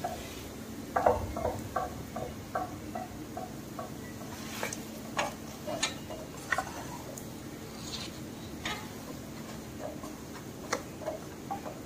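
Wooden spatula knocking and scraping against a non-stick pan as boiled mashed potato is broken up and mixed into fried spice masala: soft knocks about three a second at first, then scattered sharper clicks.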